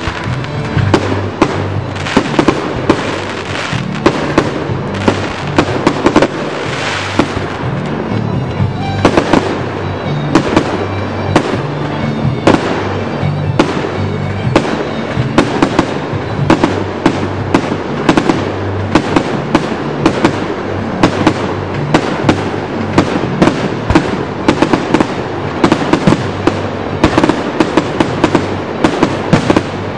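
Aerial fireworks going off in a rapid string of bangs and crackles, several a second, with music playing underneath.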